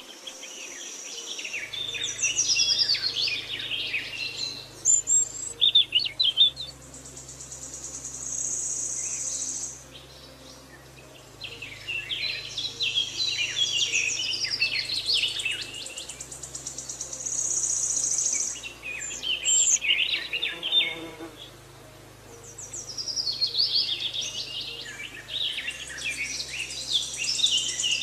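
Birdsong: bursts of chirping and trilling calls a few seconds apart, with a steady high insect-like buzz at times and a faint low drone that shifts every few seconds.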